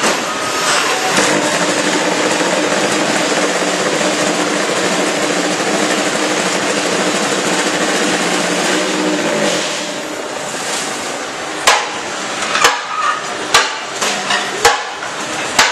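A concrete block making machine running with a loud, steady mechanical drone that stops about ten seconds in. Sharp metallic clanks follow, about once a second.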